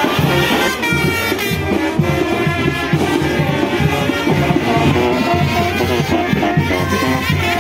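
Village brass band playing a lively tune, with sousaphones carrying the bass line under saxophones and trumpets, and a bass drum keeping the beat.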